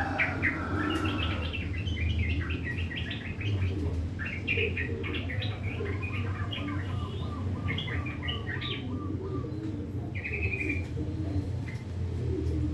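Sooty-headed bulbul (trucukan) singing a rough, chattering song of quick short chirps, thinning out in the last few seconds, over a steady low hum.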